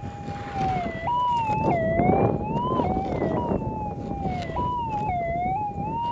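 Minelab GPX 6000 metal detector's target signal: a warbling tone that jumps up in pitch and slides back down several times as the coil sweeps over a gold nugget. This big wobbling response is the sign of a sizeable nugget, usually over half a gram.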